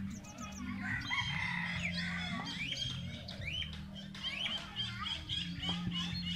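A chorus of birds calling, with many short rising chirps several times a second and some clucking, over a low steady hum.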